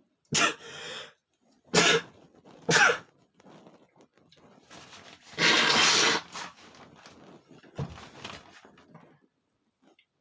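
A man sneezing repeatedly in a sneezing fit: three sharp sneezes in quick succession at the start, then a longer, louder sneeze around the middle and one more near the end.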